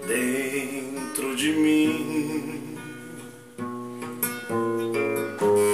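Classical guitar strummed in chords, several strokes ringing on between them, with a man's voice holding a wavering sung note at the start.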